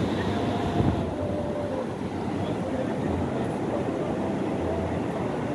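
Wind rumbling on a phone's built-in microphone over surf washing onto the beach, a steady noise with no clear breaks.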